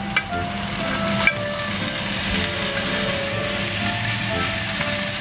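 Oil sizzling hard in a frying pan as tomato wedges are added to sautéed garlic and onion and stirred with a wooden spoon, with a couple of sharp knocks in the first second or so.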